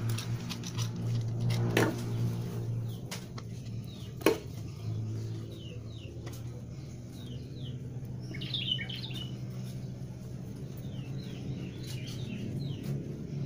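Small metal clicks and taps as a washer and nut are fitted onto a bolt by hand, with one sharper click about four seconds in. From the middle on, a bird chirps in short quick notes, over a steady low hum.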